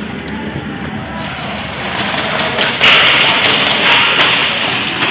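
Steady rustle and wind-like noise from a helmet-mounted camera. About three seconds in, a sudden loud rush of noise lasts about a second, followed by several sharp, irregular cracks of airsoft guns firing.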